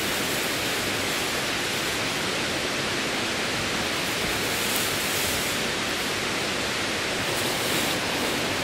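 Steady rushing of a mountain creek running close by.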